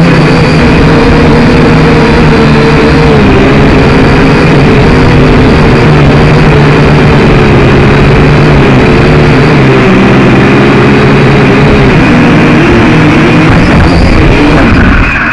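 Quadcopter's electric motors and propellers whining loudly, close to the drone's own onboard camera. Several steady tones waver in pitch as the throttle shifts. The sound begins to die away right at the end.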